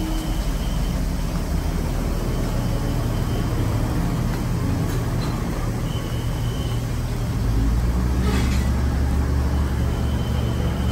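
Steady low rumble of a diesel train idling at the platform. The rumble grows deeper and a little louder about seven and a half seconds in.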